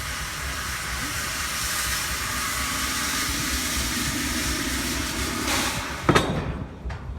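Steam pile driver running, its steam hammer hissing steadily over a rapid low pulsing. The steam hiss cuts off suddenly about six seconds in, followed by one loud knock.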